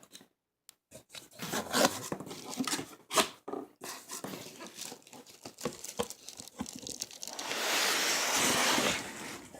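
Packaging being handled and opened: crinkling, scraping and tearing with scattered clicks, then a steadier rustle or tear lasting about a second and a half near the end.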